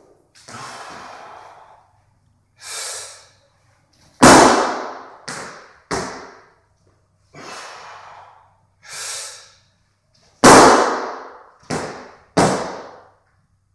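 A weightlifter doing split jerks: two loud stamps of the feet landing in the split on a wooden lifting platform as the barbell is driven overhead, each followed by two lighter steps as the feet recover. Between them come heavy, hissing breaths as he sets up under the bar.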